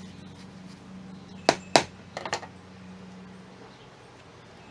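Two sharp clicks about a second and a half in, a quarter second apart, then two fainter clicks, over a steady low hum.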